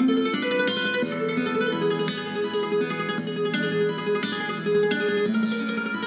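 Background music: a plucked guitar tune, note after note, with no natural sound audible over it.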